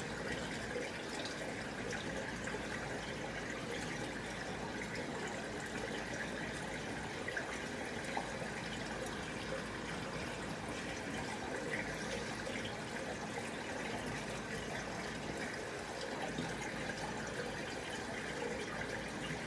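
Steady running and trickling water from a large aquarium's circulation and overflow.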